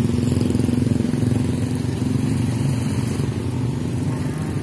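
Motorcycle engine running steadily close by, with street traffic; its hum fades out near the end.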